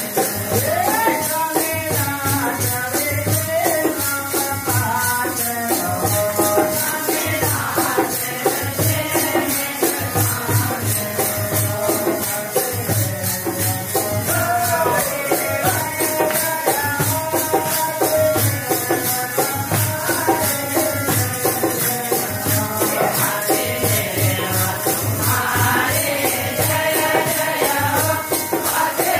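Hindi devotional bhajan kirtan: group singing over steady jingling hand percussion, about three or four strokes a second, with a low drum beat underneath.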